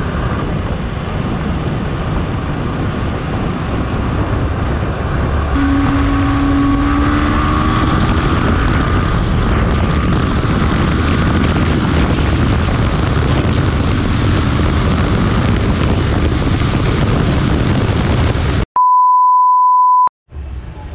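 Yamaha sport motorcycle ridden fast: a loud steady rush of wind and road noise over the engine, whose note rises slightly as the bike speeds up a few seconds in. Near the end the sound cuts off suddenly into a steady high-pitched test-tone beep lasting about a second and a half, followed by a brief silence.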